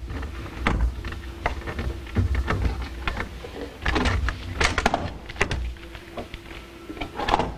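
Hands working inside a hot tub's control box, handling its plastic parts and cables, with scattered clicks and knocks.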